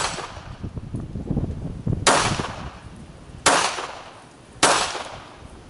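Three shots from a Polish P-64 pistol firing 9x18mm Makarov, about 1.2 seconds apart, starting about two seconds in. Each is a sharp crack with a short fading tail. The tail of an earlier shot dies away at the start, and wind buffets the microphone throughout.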